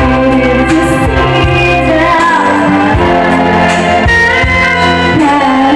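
A woman singing a slow song into a handheld microphone over backing music.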